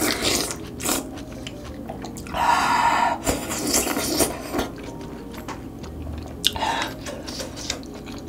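A person eating loach soup close to the microphone: wet chewing, with a longer slurping noise about two and a half seconds in and another near the end, and light clicks of a spoon and chopsticks.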